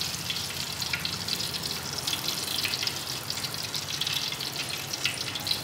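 Chicken strips deep-frying in hot oil in a turkey-fryer pot, giving a steady crackling sizzle.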